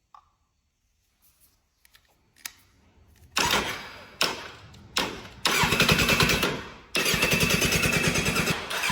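Electric starter turning over the Kawasaki Z1000's inline-four in five bursts with a fast, even rhythm, each starting suddenly and the last ones longest; the engine does not start, its fuel supply not yet connected. A small click about a quarter second in, then near silence before the first burst.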